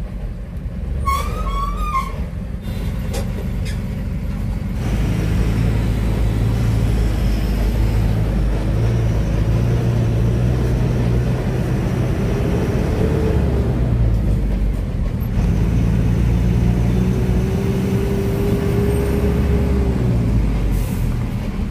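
Truck's diesel engine heard from inside the cab, idling at first. About five seconds in it gets louder as the truck pulls away and drives on, its pitch rising and falling with the throttle.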